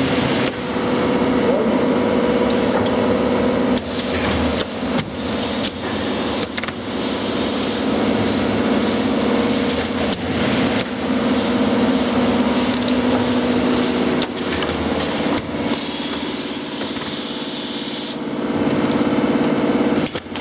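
Automatic 5 kg granulated-sugar packaging machine running: a steady motor hum with irregular mechanical clunks, and a burst of hiss about three quarters of the way through.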